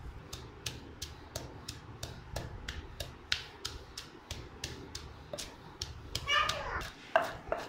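Wooden pestle pounding chopped green chillies and salt in a mortar, with steady knocks about three a second. Near the end a brief high-pitched voice is heard.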